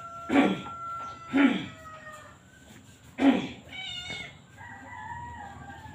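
Animal calls: three short loud cries in the first three and a half seconds, then a longer wavering call near the end.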